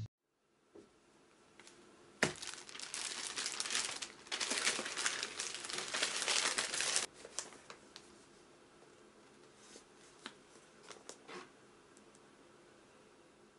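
Thin white plastic shopping bag crinkling and rustling as hands open it and reach in for a boxed package, dense for about five seconds from about two seconds in, then cutting off suddenly. After that, only a few faint taps of the box being handled.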